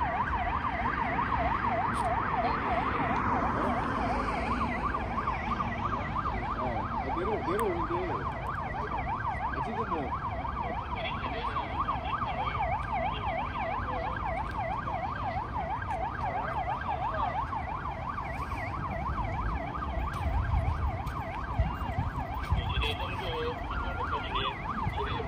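Police escort sirens sounding a fast yelp, the pitch sweeping up and down about four times a second without a break. Engine and traffic noise runs underneath and swells near the end as police motorcycles come close.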